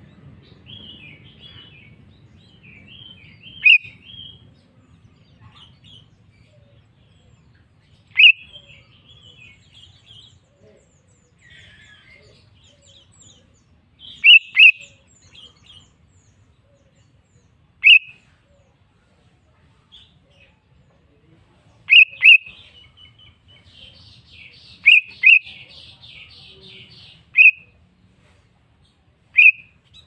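Sooty-headed bulbul calling with loud, short, sharp chirps every few seconds, several in quick pairs, and softer chattering notes between them.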